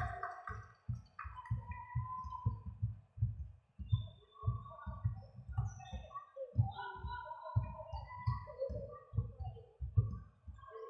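Background music with a steady low thumping beat, about two to three thumps a second, and short higher notes over it.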